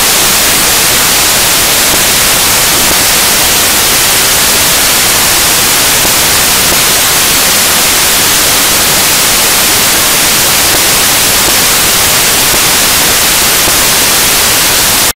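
Loud, steady static hiss like white noise, with no other sound in it, cutting off suddenly at the end: an audio-track fault, not sound from the river.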